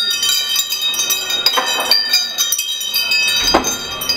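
Metal tube wind chime swinging hard, its tubes striking one another again and again and ringing with several overlapping high tones. A dull thump comes about three and a half seconds in.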